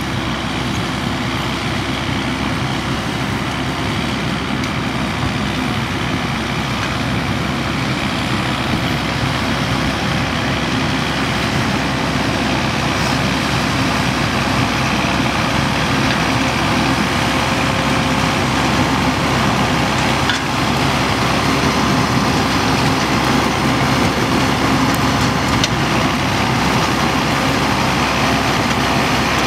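John Deere tractor engine running steadily under load as it pulls a working Grimme 150-60 harvester lifting beetroot, the harvester's machinery running with it. Growing slightly louder as the rig draws closer.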